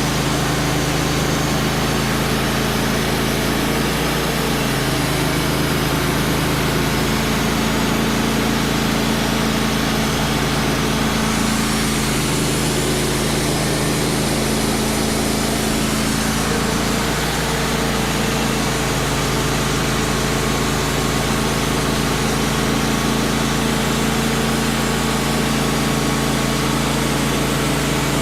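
Wood-Mizer LT35 portable band sawmill running steadily, its band blade sawing through a log. The blade is freshly resharpened but worn down, on its last use. The high hiss of the cut changes for a few seconds about halfway through.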